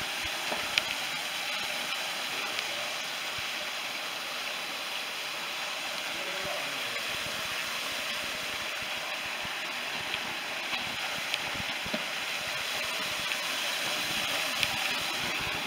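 Small waterfall spilling from a sandstone ledge into a shallow pool, a steady hiss of falling water, with a few faint clicks.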